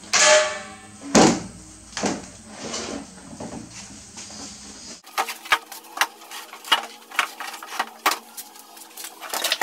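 Knocks, scrapes and clatter of a wooden two-by-four frame being set onto large PVC pipes, with a loud bump about a second in and a run of sharp clicks and taps over the last few seconds.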